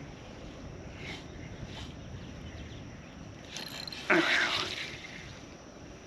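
Wind and small waves lapping around a kayak, a steady hiss, with one sudden louder noise about four seconds in.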